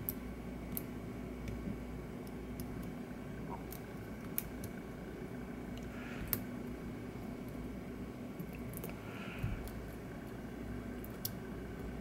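Faint, irregular metallic clicks and scratches of a hook pick working the pins inside the small four-pin core of a Master Lock model 90 trigger lock, held under a tension wrench: single-pin picking while feeling for the binding pin.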